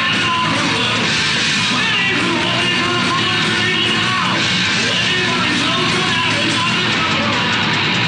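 A heavy metal band playing live: distorted electric guitars, bass and drums, loud and without a break, heard from among the audience.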